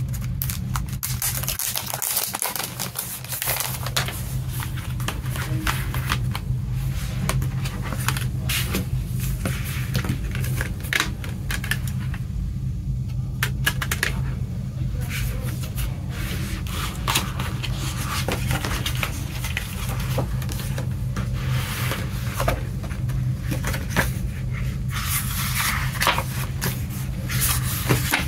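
Hands handling a CD album's packaging: irregular clicks and scrapes from the plastic disc tray and cardboard digipak, then a paper lyric booklet rustling as it is unfolded near the end, over a steady low hum.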